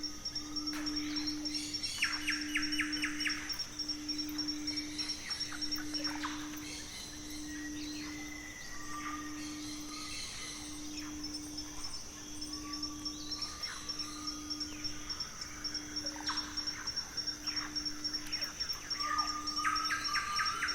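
Birds singing, with quick trills and short whistled chirps, over a steady high insect buzz. Beneath them runs a low pure hum that swells and fades about every one and a half seconds.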